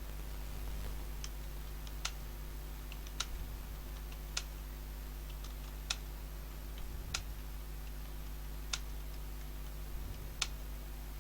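Single sharp clicks from a computer keyboard, coming slowly and unevenly about once every second and a half, over a steady low electrical hum.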